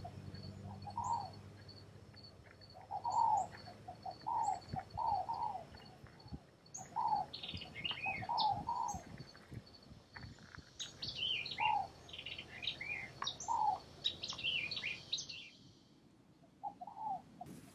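Wild birds calling: one bird repeats a short arched call note over and over, and from about seven seconds in another joins with a quicker run of high chirps that stops near the end.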